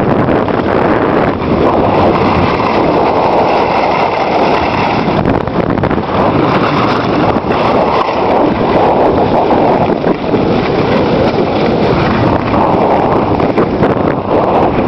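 Loud, steady rush of wind over the camera microphone at a skier's downhill speed, mixed with skis sliding over packed snow.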